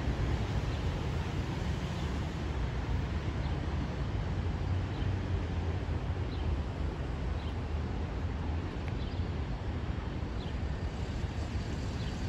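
Metra diesel locomotive working under power as it pulls a commuter train away: a steady low engine drone with a wash of running noise.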